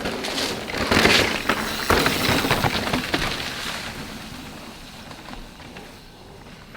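Mountain bike rolling fast over a dirt trail: tyres crunching on the ground and the bike rattling, with many small knocks. It is loudest in the first half, then fades away.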